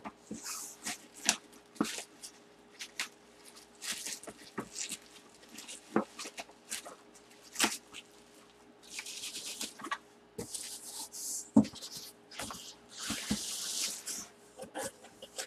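Cardboard boxes being handled and packed: scattered knocks and taps, with several short bursts of hissy rustling.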